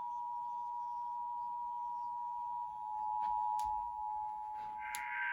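Emergency Alert System attention signal: two steady sine tones (853 and 960 Hz) sounding together as one continuous alert tone for a Required Monthly Test. A short burst of higher buzzing overlaps it near the end.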